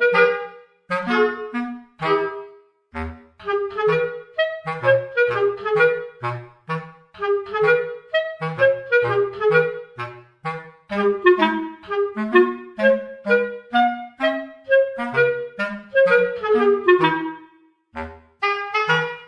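Background music: a bouncy tune of short, quickly fading notes over a bass line.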